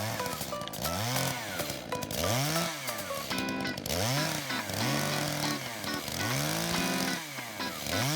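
Two-stroke chainsaw engine revved over and over, its pitch rising and falling back about once a second.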